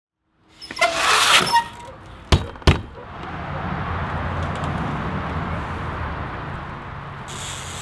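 Metal clatter and scraping with a brief ringing tone, then two sharp knocks, from a wooden shed door with a steel hasp; a steady low rumble follows.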